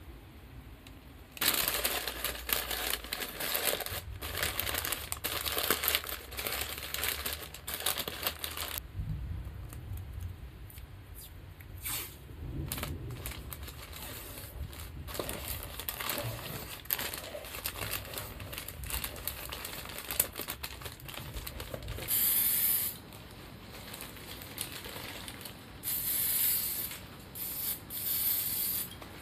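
Newspaper crinkling and crumpling and masking tape tearing as a shoe is wrapped and masked off. Near the end come several short hisses of an aerosol spray can, spraying paint onto the masked shoe's sole.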